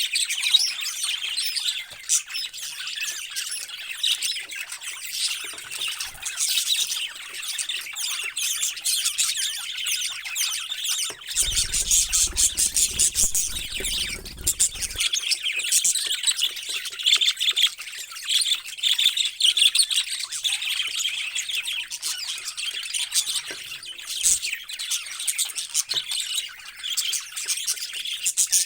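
A flock of captive parrots chattering continuously, many overlapping chirps and squawks.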